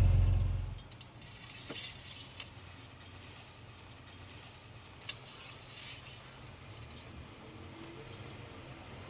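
Jeep Cherokee XJ's 4.0-litre inline-six idling, then shut off within the first second, its low hum dying away. Afterwards only faint clicks and rustling handling noises.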